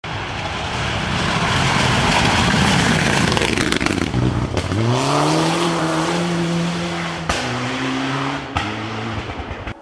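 Rally car flat out on a gravel stage, passing close by with its engine at high revs amid a rush of tyre and gravel noise. The engine note then rises and holds steady as the car pulls away, with two sharp cracks near the end.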